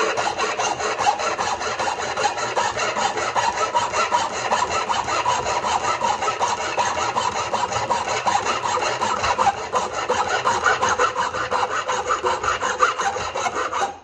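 Flat metal file rasping back and forth on the steel dog of a Wolf Creek No. 3 foothold trap in quick, even strokes, cutting a night-latch notch into it.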